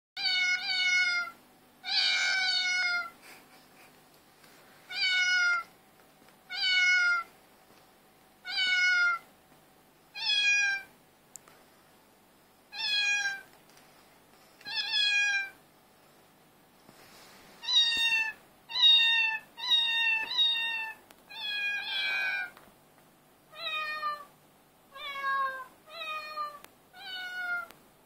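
Cat meows repeated over and over, each a short call of much the same shape. They come about two seconds apart at first, then about once a second from around eighteen seconds in, some of the later ones lower.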